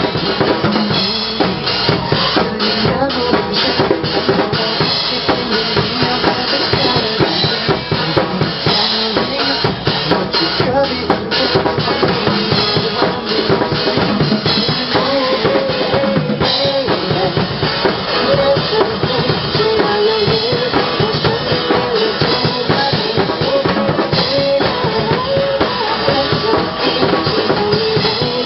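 Drum kit played live and busily, with bass-drum, snare and rimshot hits over a backing track of music.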